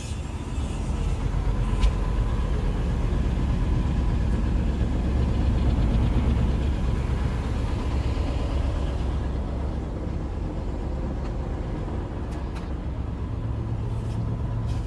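Steady low rumble of a houseboat's engine running, heard from inside the cabin, with a single click about two seconds in.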